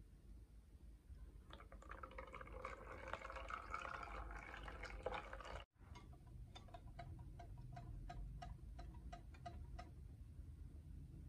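Thick red velvet crepe batter pouring in a stream into a glass bowl, a faint splashing hiss. Then a wire whisk stirs the batter, tapping the glass bowl about four times a second with a light ring.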